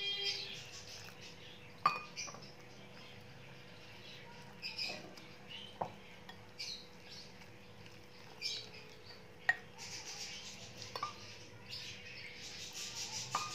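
A spoon clinking and scraping against a glass bowl while gram-flour batter is stirred, with a few sharp clinks among soft wet mixing sounds. Water trickles in from a steel tumbler near the end.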